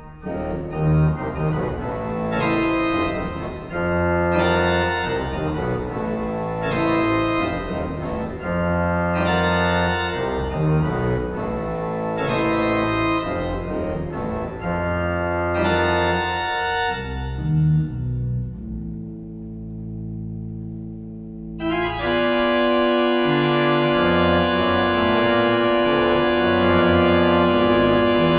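Pipe organ playing loud, dense chords over a deep pedal bass, re-struck about every two seconds. Near two-thirds of the way through the upper notes die away, leaving a low held chord. Then a bright full-organ chord comes in and is sustained.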